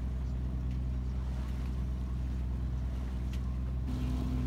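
A 28 ft sailboat's engine running steadily under way on a calm sea, a constant low drone. Its pitch shifts slightly near the end.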